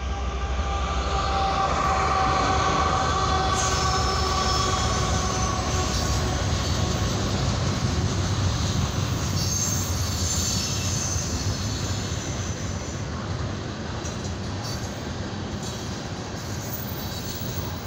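Norfolk Southern freight train of trash container cars rolling past: a steady heavy rumble of wheels on rail with a high wheel squeal. It swells over the first couple of seconds, and the squeal is strongest in the first half.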